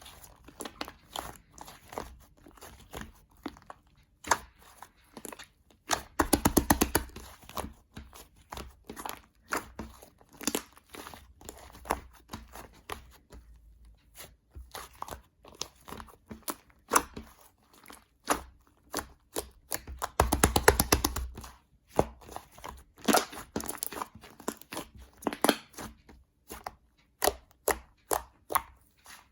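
Shaving-foam slime being kneaded and stretched by hand: irregular sticky clicks and crackles. Twice there is a longer run of rapid crackling, about six seconds in and again about twenty seconds in.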